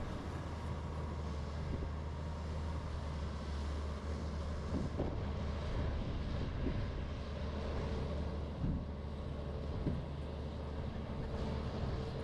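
Diesel engine of heavy earthmoving equipment running steadily with a deep low drone, with a few short clunks in the middle.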